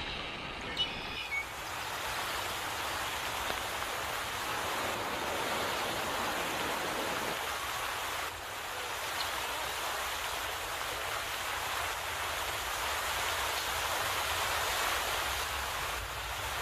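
Steady rush of water flowing over rocks in a stream, with a couple of small clicks about a second in.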